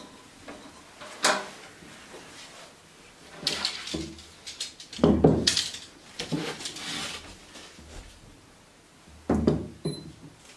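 Wooden boards (oriented strand board) being handled and stood upright on a table: scraping and several knocks. There is a sharp knock about a second in, the heaviest thump about five seconds in, and another knock near the end.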